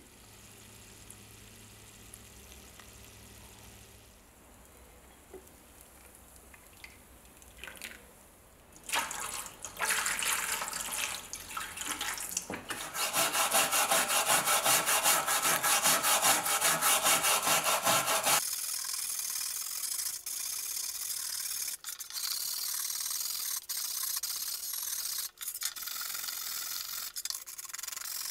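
A small stiff brush scrubbing the black residue that electrolysis has left on a rusty steel knife blade and scabbard in a shallow metal tray of water, with rapid back-and-forth strokes. The scrubbing is loudest and most rhythmic in the middle, then thinner and higher for the last ten seconds. It starts after a few seconds of faint fizzing from the electrolysis bath.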